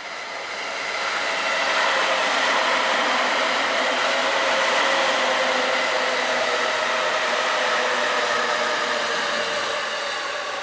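Electric train passing close by: a steady rushing noise with a held whine in it. It swells over the first couple of seconds, holds, and eases slightly near the end.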